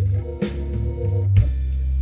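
Instrumental bars of a blues-style song played back over Marten hi-fi loudspeakers: bass notes under held chords, with two drum hits about a second apart.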